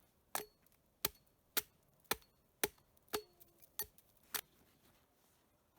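An axe chopping notches into a log, eight sharp strikes at about two a second. The notches are cut so the log will lie still and not roll.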